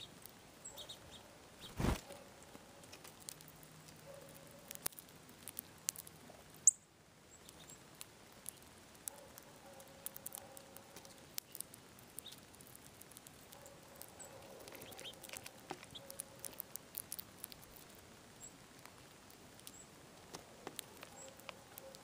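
Small songbird pecking and shuffling through a pile of sunflower seeds on a feeder, the seeds giving faint scattered clicks and ticks. A louder thump comes about two seconds in.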